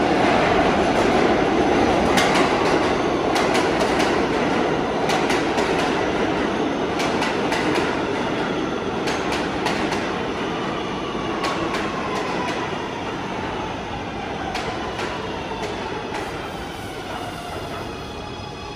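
New York City subway train running on the rails, its wheels clicking irregularly over rail joints, with a faint whine that falls slowly in pitch. The whole sound fades gradually.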